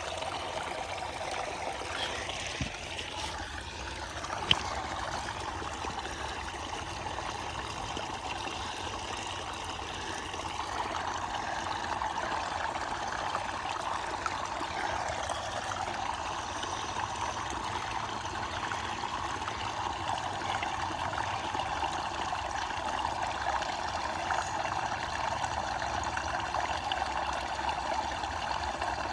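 Creek water running and splashing over rocks at a small waterfall, a steady rushing that grows a little louder after about ten seconds. A single sharp knock about four and a half seconds in.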